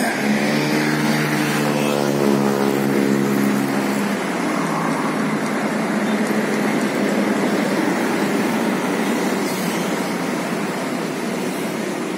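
Parked coach bus's engine running steadily, a droning hum that gives way about four seconds in to a rougher, even rumble.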